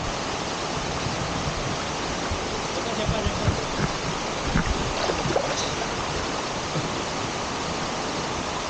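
Waterfall rushing steadily, a dense even roar of falling water, with a few short low knocks about three to five seconds in.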